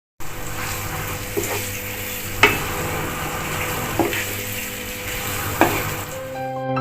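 Food sizzling in a frying pan as it is stir-fried, with a spatula knocking against the pan four times at irregular intervals.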